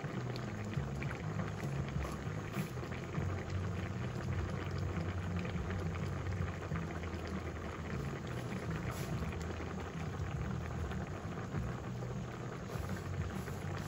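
Thick coconut-milk vegetable curry at a rolling boil in a pan, bubbling steadily.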